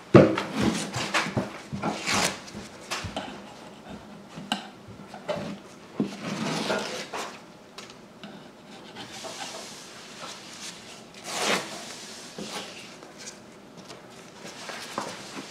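Wallpaper border, soaked with hot water, being peeled and rubbed off a wall by a gloved hand: several bursts of scraping and rustling with scattered clicks and knocks.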